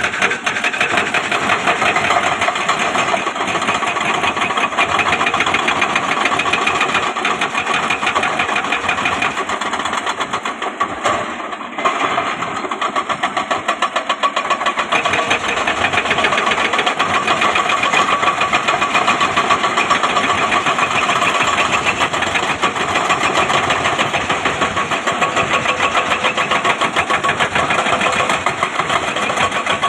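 Diesel engine of heavy earthmoving machinery running steadily with a fast, even pulse, dipping briefly about eleven seconds in.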